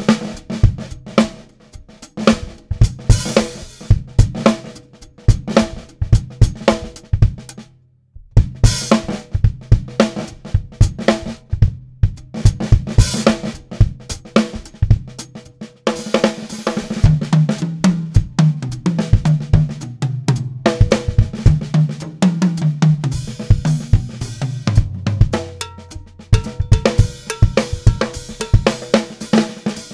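Drum kit solo: snare, bass drum, hi-hat and cymbal crashes, with the toms stepping up and down in pitch to pick out a melody. There is a short break about eight seconds in.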